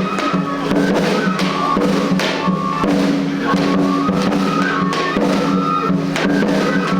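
Music with repeated drum beats under a melody of held notes that step from one pitch to another.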